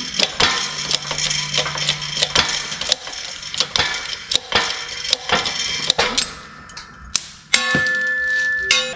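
Hydraulic bottle-jack shop press being pumped while it presses a stuck bearing out of a pulley: a run of irregular metallic clicks and ticks. Near the end a steady ringing tone sounds for about a second and a half, then cuts off suddenly.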